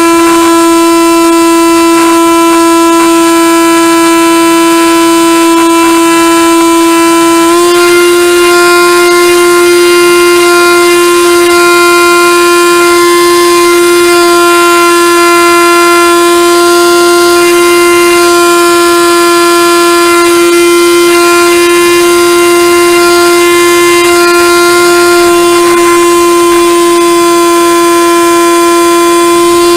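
Radio-controlled model aircraft's motor and propeller running steadily, a loud, even tone with many overtones heard up close from the onboard camera. Its pitch steps up slightly about seven and a half seconds in as the motor speeds up, then holds.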